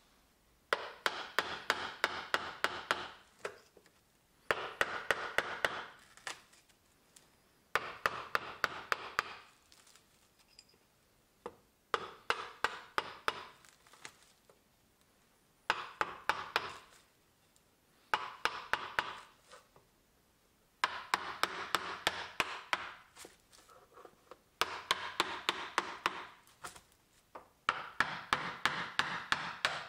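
Wooden mallet striking an upholsterer's ripping chisel to prise out old tacks and tear the old cover off a wooden chair's seat rail: runs of sharp knocks, about three a second, with a rough scraping between them. The runs last about two seconds each and come again after short pauses, some eight times.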